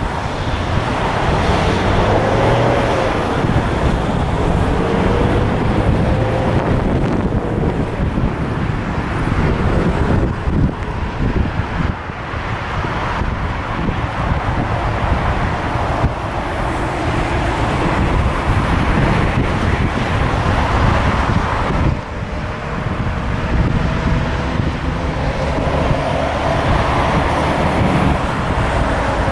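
Wind buffeting the microphone over steady road traffic, with a passing vehicle's hum gliding up and down a few seconds in and again near the end.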